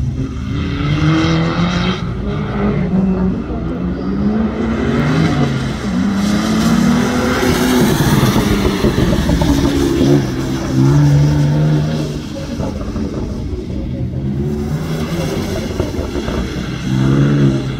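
Car engine revving up and dropping off again and again as the car is flung through tight turns on a wet track, for much of it a BMW M4 coupe sliding sideways. A hiss of tyres on the wet surface rises around the middle.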